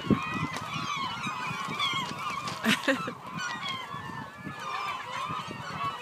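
A large flock of seagulls calling, many short cries overlapping at once, with a brief sharp bump a little before the middle.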